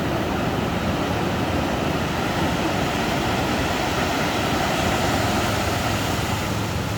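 Ocean surf washing onto a beach: a steady, unbroken rush of waves.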